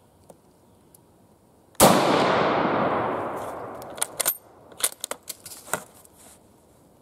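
Argentine 1891 Mauser rifle, chambered in 7.65×53mm, fires a single shot about two seconds in, and the report echoes away over about two seconds. The bolt is then worked, a quick run of sharp metallic clicks and clacks as the spent case comes out and the next round goes in.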